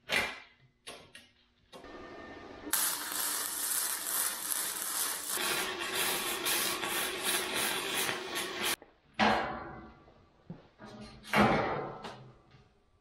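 Electric arc welder welding a steel square-tube frame: a loud, steady crackling arc for about six seconds that cuts off suddenly, just after a short softer hiss. Sharp metal clanks before and after the weld.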